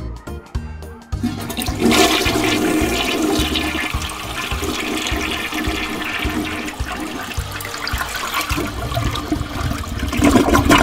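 A loud rushing, water-like noise that starts about a second in and carries on, laid over music with a steady low beat.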